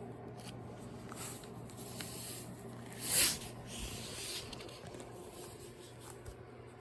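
A Shiba Inu puppy shuffling with faint scratchy rustling, and one short hissing burst about three seconds in.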